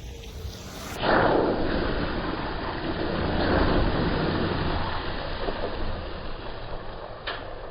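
Pickup truck's tyres driving through a water and mud puddle, splashing and spraying water over the engine's low running. The splash comes in suddenly about a second in, is loudest over the next few seconds, then eases off.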